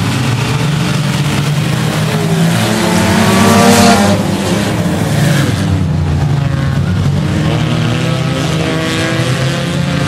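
A pack of small compact race cars running flat out on a dirt oval under the green flag, their engines revving and rising in pitch. The loudest moment comes about four seconds in as cars pass close by, and a second rise follows near the end.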